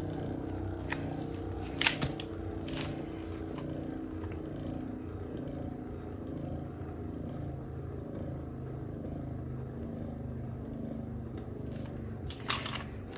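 Ultimate Valkyrie Wing' Accel'-9 Beyblade spinning on its Accel' driver, a steady whirring hum, with a few sharp clicks about one to three seconds in and a brief clatter near the end.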